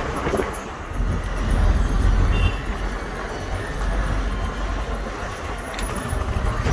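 A car driving along a road: a steady low rumble of engine and tyres, heard from inside the moving vehicle, getting louder about a second in.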